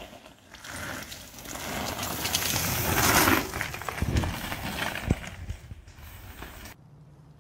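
Mountain bike tyres rolling and skidding on loose gravel: a crunching rush that builds to its loudest about three seconds in, followed by a couple of dull thumps.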